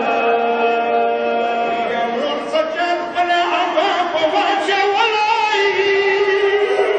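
Men chanting a Pashto matam rubai, a Shia mourning lament, in long held notes that waver in pitch.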